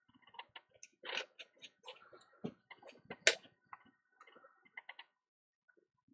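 Faint, irregular small clicks and taps of fine tweezers and tools being handled while a jumper wire is placed on a phone logic board, with one sharper click about three seconds in. The clicking stops about five seconds in.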